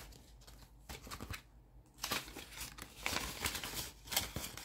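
Paper bills and clear plastic binder pockets rustling and crinkling as cash is handled in a cash-envelope binder. The rustles are sparse at first and get busier about halfway through.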